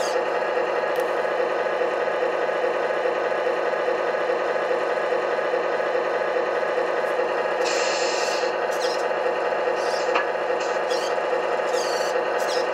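Simulated diesel truck engine sound from a Tamiya MFC-01 multi-function unit, idling steadily through the model's onboard speaker as a rough, even drone. Short hissy sounds come and go on top of it a few times.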